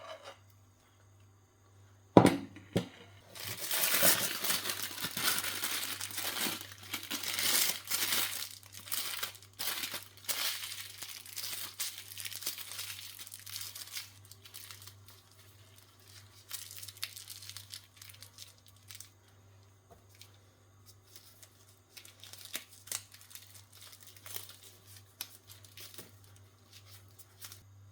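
Plastic piping bag crinkling and rustling as it is handled and filled with gram-flour batter, dense for about ten seconds and then thinning to scattered crackles. A sharp knock sounds about two seconds in.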